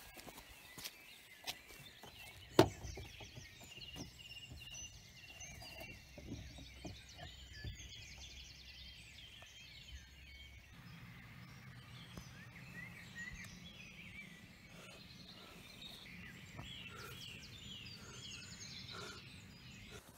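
Birds chirping and singing throughout, with one sharp bang about two and a half seconds in and a low rumble underneath.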